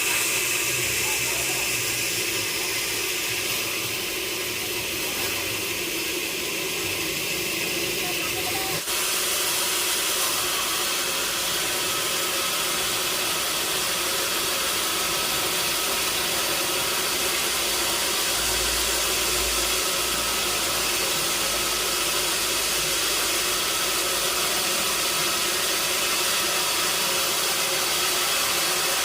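Sawmill saw running steadily through timber, a loud continuous hissing machine noise with a faint steady hum. The sound changes abruptly about nine seconds in, then carries on just as steadily.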